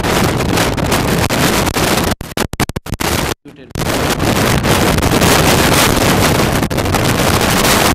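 Loud, harsh crackling noise from a distorted microphone audio feed that swamps the speech. It cuts out in several quick breaks about two to three seconds in, then returns at full level.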